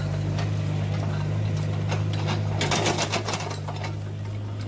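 Electric drive motor and gearbox of a Huina radio-controlled toy dump truck running with a steady hum as it drives over dirt, with a cluster of clicks and crackles a little before the three-second mark.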